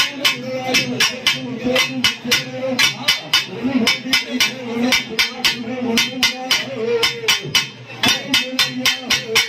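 Festival percussion: rapid, sharp drum strikes, several a second in an uneven driving rhythm, over a held, wavering tone.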